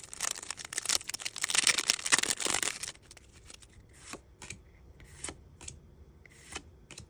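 A foil Pokémon card booster pack is torn open and crinkled for about three seconds. Then the cards are slid over one another one at a time, with short separate swishes.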